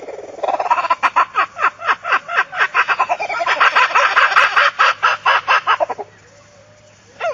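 An animal making rapid, repeated clucking calls, about five a second, that stop about six seconds in.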